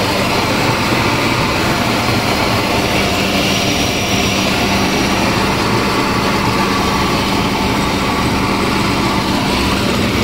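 Flour mill (chakki) running steadily while grinding dry corn into maize flour: a loud, even machine drone with a constant low hum.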